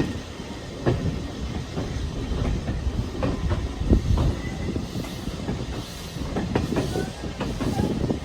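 Steam-hauled heritage train running along the track: a continuous rumble with irregular clanks and knocks from wheels and couplings, strongest about a second in and about four seconds in, with faint squeals in the second half.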